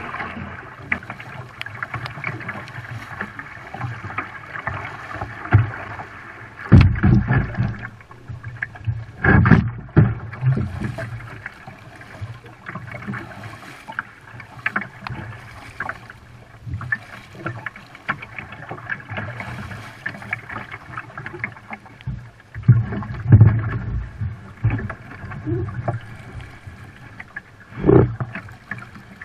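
Shallow river rapids running steadily, with several loud splashes and sloshes as legs in waders push through the current.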